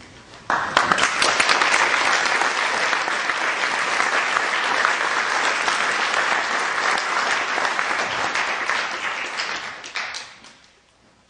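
Audience applauding, starting abruptly about half a second in, holding steady, then dying away near the end.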